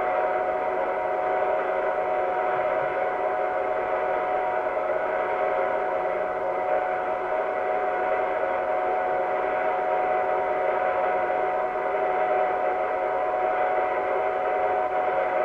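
Steady mechanical whir and hum of a running film projector, unchanging, with a few fixed tones over an even rattle-like hiss.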